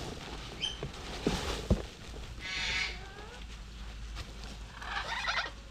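Two wavering animal calls, the first about two and a half seconds in and a shorter one near the end, after a couple of dull knocks about a second in.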